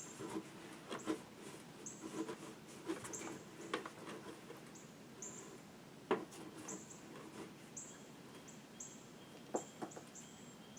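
Light, scattered clicks and knocks of hands handling the chainsaw and its oil, one sharper knock about six seconds in. Short, high chirps repeat every second or so behind them.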